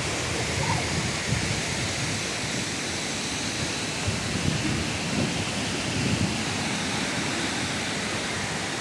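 Waterfall: a steady rush of falling water, with an uneven low rumble underneath.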